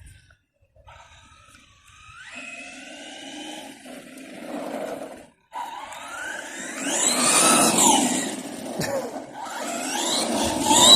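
Brushless electric motor of a Maverick Strada XT Evo RC truck whining as it drives, the pitch rising and falling with the throttle. It is faint at first and louder over the second half, with a brief cut-out about five seconds in.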